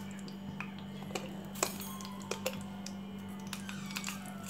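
Sparse light clicks and clinks as cumin seeds are tipped into hot oil in a small steel pan for tempering, over a steady low hum.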